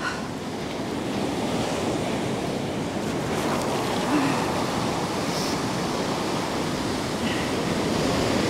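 Ocean surf breaking and washing up a sand beach close by, a steady rushing noise.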